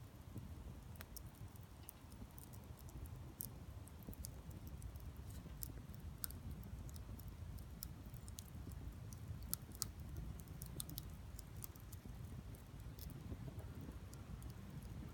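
Wood fire crackling in a small folding grill: irregular sharp pops and snaps of burning wood over a low steady rumble.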